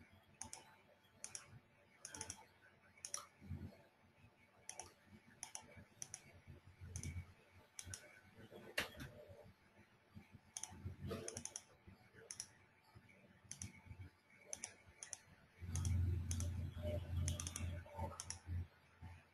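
Irregular, scattered clicks and taps of a computer keyboard at a desk. Near the end, a louder, low, muffled sound lasts for about two seconds.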